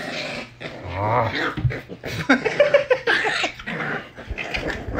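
Pembroke Welsh corgi puppies play-fighting: short puppy growls and high yips in irregular bursts, with light scuffling.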